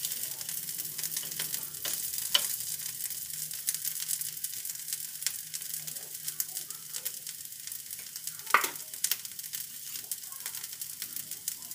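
Aloo tikkis sizzling and crackling steadily as they shallow-fry in desi ghee on an iron tawa. A metal spatula works the pan at the start, and a few sharp knocks stand out, the loudest about eight and a half seconds in.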